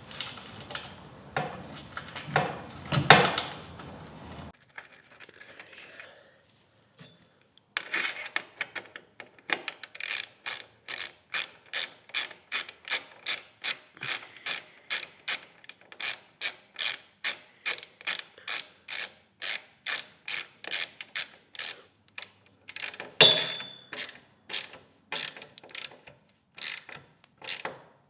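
Hand ratchet wrench clicking in an even rhythm, about two to three clicks a second, as bolts are tightened. A few knocks and handling sounds come first, and a louder knock cuts in about two-thirds of the way through.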